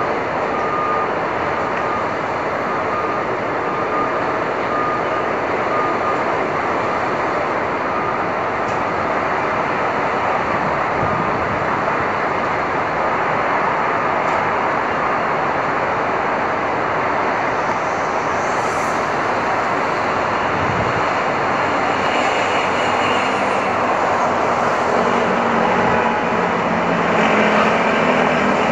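Busy Manhattan street traffic on a stormy day: a steady wash of vehicle and road noise, with an intermittent reversing beeper in the first several seconds and a heavy truck or bus engine growing louder near the end.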